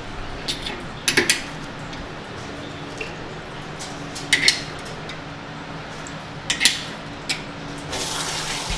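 Metal hooks clinking in short clusters as gutted salmon are hung up, over a steady low hum of room machinery. A brief rush of running water comes near the end.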